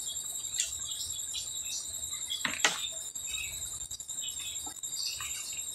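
Quiet eating and food-handling sounds, a few sharp clicks and crunches with the strongest about halfway through, over a steady high-pitched whine.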